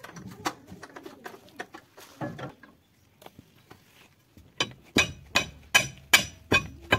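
Hammer striking metal in a steady rhythm, about two and a half ringing blows a second, starting about four and a half seconds in after some light clatter.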